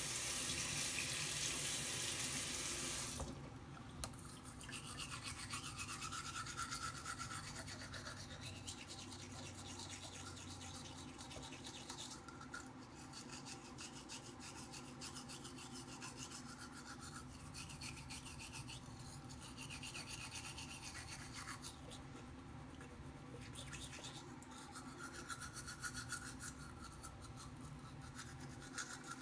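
Water runs from a tap as a steady hiss for about the first three seconds. After that comes the rasping scrub of a manual toothbrush brushing teeth, in quick back-and-forth strokes that continue throughout.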